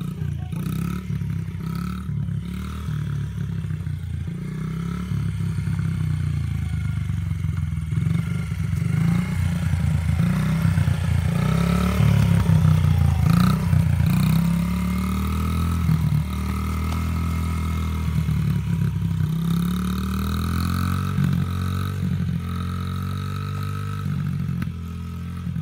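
Honda XR mini dirt bike's small four-stroke single-cylinder engine running as it is ridden, its pitch rising and falling with the throttle. It is loudest about halfway through as it passes close by, then gets quieter as it rides away.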